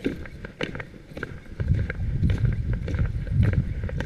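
Footsteps of a person walking on a snow-covered gravel road, sharp steps about two or three a second. A low rumble on the microphone comes in about a second and a half in.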